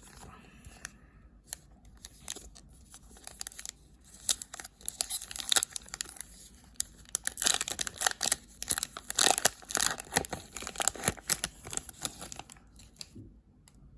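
A 2020-21 Upper Deck Series 2 hockey card pack wrapper being torn open and crinkled by hand, a crackly run of tearing and crumpling that starts about four seconds in and dies away near the end.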